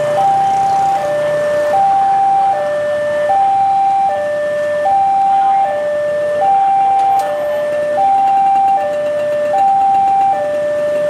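Railway level-crossing warning alarm sounding a steady two-tone electronic hi-lo signal, high and low notes alternating about every 0.8 s, warning that a train is approaching.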